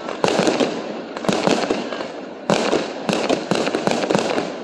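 Aerial fireworks bursting in rapid volleys: dense clusters of sharp bangs and pops, a new cluster starting about once a second.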